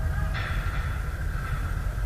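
Heavy low rumble from wind buffeting the camera microphone, with faint distant voices above it.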